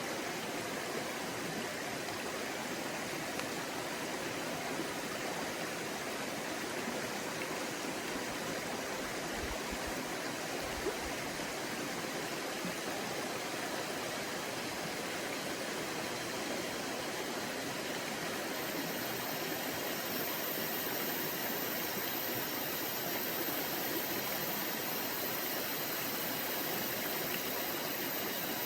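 Forest stream flowing, a steady, even wash of running water.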